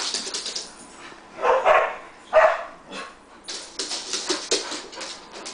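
Husky-type dogs playing: short barks about one and a half and two and a half seconds in, followed by a quick patter of claws on a hardwood floor as they run.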